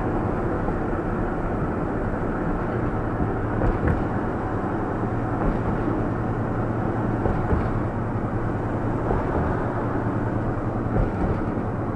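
Steady driving noise heard from inside a vehicle's cab: engine and tyre rumble with a constant low hum.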